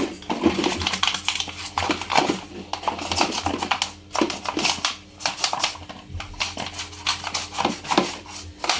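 Irregular clattering and scraping of washing-machine parts being scrubbed and handled during cleaning.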